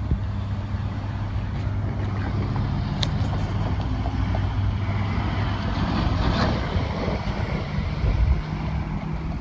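Low, steady engine hum with wind noise on the microphone, swelling about six seconds in as traffic goes by.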